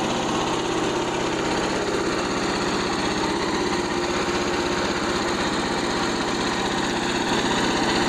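Frontier OS27 band sawmill's small engine running steadily, not cutting, with an even pulsing beat and a steady hum.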